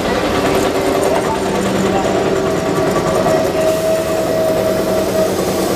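Steam-hauled train moving slowly past at close range, its carriages and locomotive tender rolling by with a steady mechanical noise and a few level humming tones.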